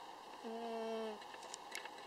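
Sleeping calico cat snoring: one high, whistling snore about half a second in, lasting under a second. A few faint clicks near the end.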